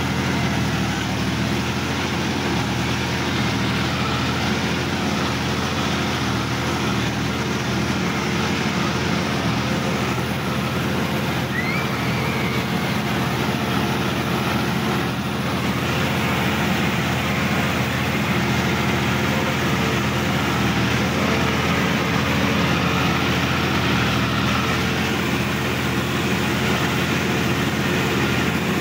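Sonalika DI-50 RX tractor's diesel engine running steadily, heard from the driver's seat as the tractor drives through a wet, muddy field.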